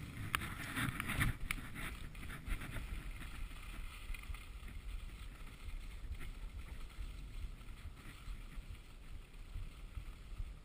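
Skis hissing and scraping over packed snow, with wind buffeting the microphone as a low rumble. The scraping is rougher and choppier for the first couple of seconds, then settles into a steady glide.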